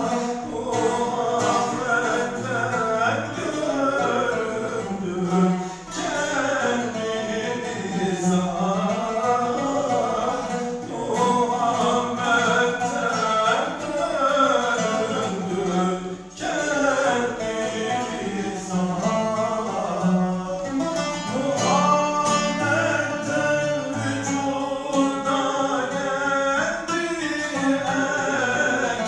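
A man sings a Turkish Sufi hymn (ilahi) in makam hüzzam, with long ornamented vocal lines, accompanied by a plucked oud.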